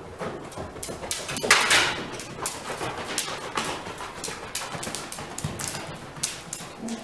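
A ridden Icelandic horse moving at a quick, even pace: a run of short hoofbeats, several a second. A louder rush of noise comes about one and a half seconds in.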